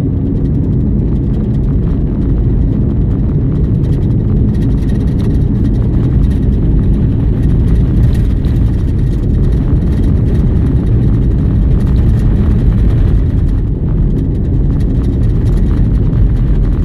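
Vehicle driving along a rough unpaved back road: a steady low rumble of tyres and engine, with scattered small knocks and rattles from the bumpy surface.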